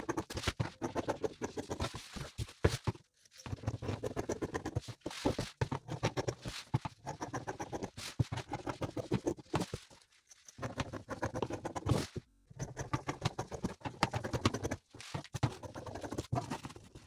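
Dressmaking scissors snipping through doubled, pinned crinkled fabric on a table: runs of quick crunching cuts broken by short pauses. The stiff fabric rustles as it is lifted and moved.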